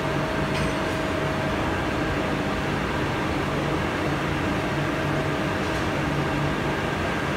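Large girth gear and pinion drive running, turning the gear slowly, with a steady mechanical hum and no distinct knocks.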